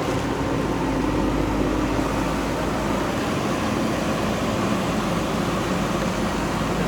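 JCB backhoe loader's diesel engine running steadily, with a low hum and a changing engine note.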